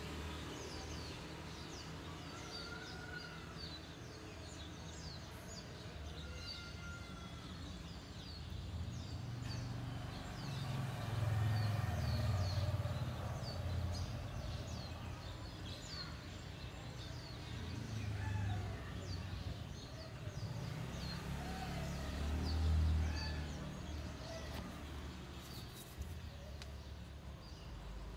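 Birds chirping, many short high calls throughout with a few lower calls mixed in, over a low rumble that swells around the middle and again near the end.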